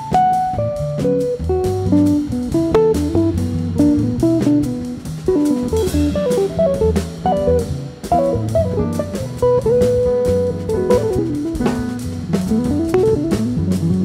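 Instrumental music: an electric guitar playing a run of single-note lines with bends over bass and drums.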